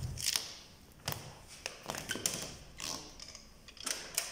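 A few scattered light taps and clicks, with soft scraping rustles, as a thin LCD glass panel and its plastic frame are handled and lifted off the TV's diffuser layers.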